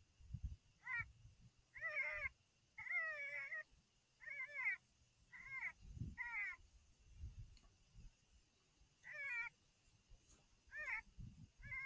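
Electronic predator call playing a wavering, meow-like distress cry over and over, each cry shorter than a second, with a pause after the middle. Wind thumps on the microphone underneath.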